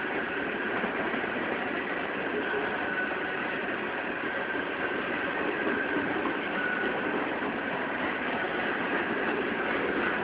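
Empty coal hopper cars of a BNSF unit coal train rolling past, a steady rumble and clatter of wheels on rail with a thin, steady whine running through it.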